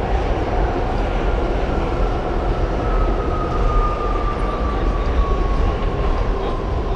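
R68 subway train running on the rails with a steady low rumble, its traction motors whining in a tone that falls slowly in pitch over the last few seconds as the train slows.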